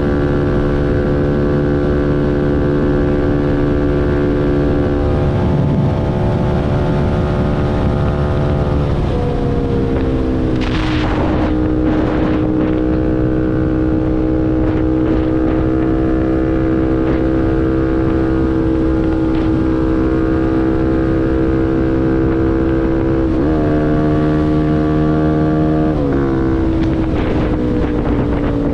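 CFMoto NK250's single-cylinder engine running through a full Akrapovič exhaust as the motorcycle rides along. Its note steps down about nine seconds in and shifts twice more near the end, as at gear changes. Wind rushes over the microphone.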